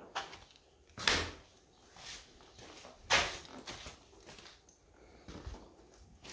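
Two sharp thumps about two seconds apart, each fading within half a second, with fainter knocks in between.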